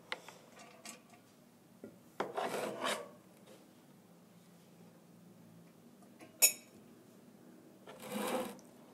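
Two short rasping scrapes, as of a spoon scraping rice from a pot or plate while more rice is served. A single sharp click or knock falls between them and is the loudest sound.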